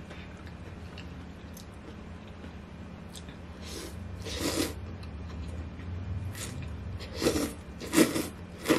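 A person slurping thin wheat noodles in broth (janchi guksu) off chopsticks: three quick hissing slurps about halfway through, and three more near the end.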